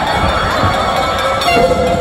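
Crowd cheering and shouting, with a steady held tone sounding above the noise.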